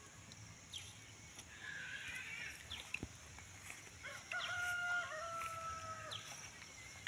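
A rooster crowing once, a single long call of about two seconds starting about four seconds in.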